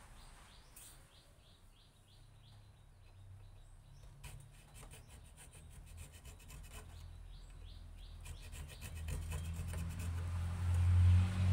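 Short, quick scraping strokes of a small hand chisel cutting anti-slip grooves into a wooden knife handle, in runs of about four strokes a second.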